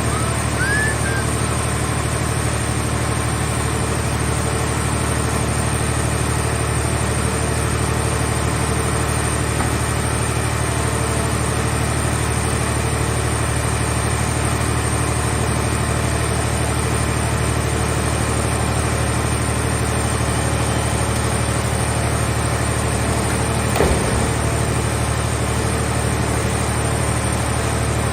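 Engine of a hydraulic car-body baler running steadily at an even speed, with a faint high whine over it. A single sharp knock sounds near the end.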